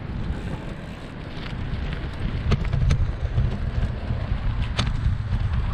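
Wind buffeting the microphone of a handlebar-mounted camera on a moving bicycle: a steady low rumble, with a few sharp clicks scattered through it.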